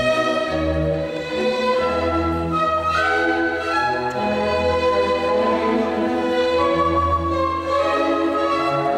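Orchestral classical music led by bowed strings, with held notes over a moving bass line.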